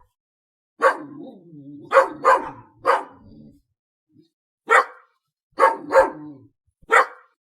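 A dog barking: eight sharp barks in irregular bursts, some in quick pairs.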